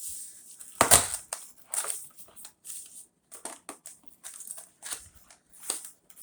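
Packaging of a toy replica championship belt being opened by hand: irregular crunching and crinkling bursts, the loudest about a second in.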